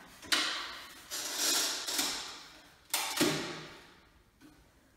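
Handling noise while fitting a smoke alarm to a ceiling: about five sharp knocks and scrapes of hard parts and tools, each fading over about a second, growing quieter near the end.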